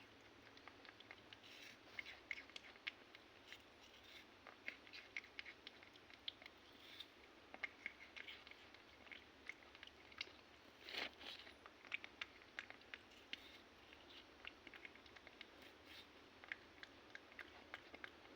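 Faint, irregular small clicks and crunches, many per second at times and uneven in spacing, like close-up chewing or small handling noises.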